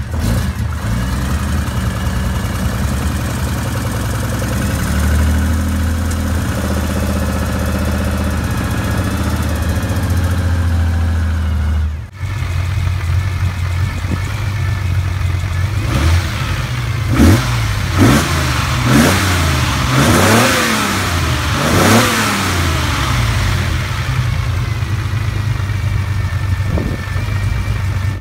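Nissan S20 2.0-litre twin-cam straight-six idling steadily. After a brief break it is blipped about five times in quick succession, each rev rising and falling, before settling back to idle.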